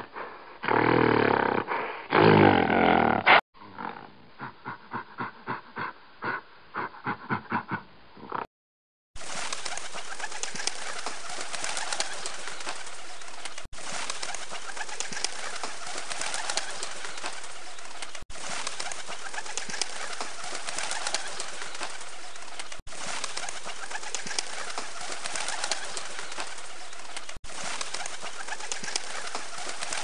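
A loud animal roar for the first few seconds, then a run of short regular calls. After that comes a long, steady wash of pigeon and bird sound, broken by brief gaps about every four and a half seconds as if looped.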